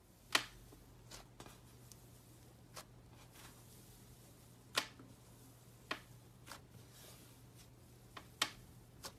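Fluffy yellow slime squeezed and poked by fingers, giving scattered sharp sticky pops and crackles, about ten in all, over a faint steady hum.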